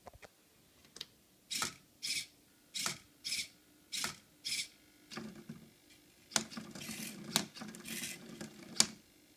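Hobby servo motors of an Arduino-driven Rubik's cube solving robot moving in short buzzing whirs, six of them in quick pairs, then a longer, rougher stretch of whirring and rattling with a few sharp clacks of the plastic mechanism and cube. The machine is running its little victory dance after finishing the solve.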